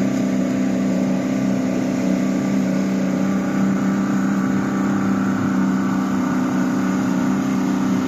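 Fishing boat's engine running at a steady speed while the boat is under way, an even, unchanging drone.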